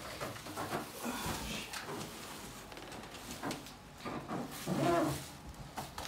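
A microwave oven being pulled out of its cardboard box: cardboard and packing foam scraping and rustling, with a louder, pitched squeak about five seconds in.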